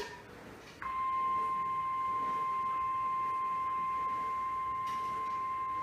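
NOAA Weather Radio 1050 Hz warning alarm tone: after a brief click, one steady, unbroken high tone starts about a second in and holds. It is the alert signal that sets off weather radio receivers ahead of an urgent weather message, here a severe thunderstorm watch.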